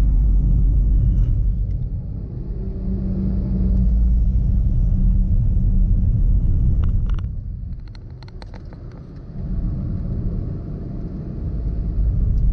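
Vehicle travelling along a highway: a steady low rumble of engine, road and wind noise, easing off for a moment about eight seconds in, with a few sharp clicks around then.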